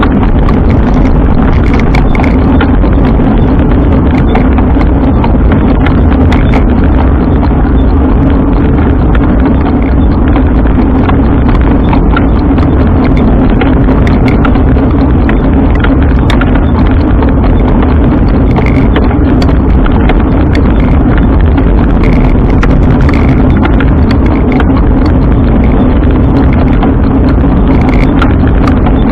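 Continuous noise of a bike on the move: a loud, steady low rumble with a constant hum and frequent small rattles and clicks.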